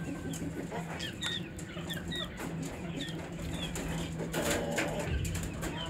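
Aseel chickens and chicks feeding at a steel bowl: a series of short, high, falling peeps from about a second in, with scattered pecking clicks, and a brief rush of scuffling noise a little past the middle.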